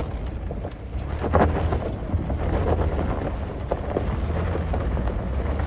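A truck driving over a rough desert dirt road, heard from inside: a steady low rumble from the engine and tyres, with scattered knocks and rattles from the rough ground.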